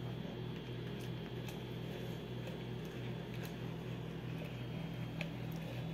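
Silicone spatula stirring milk gelatin in an aluminium pot: soft stirring with a few faint taps against the pot, over a low steady hum.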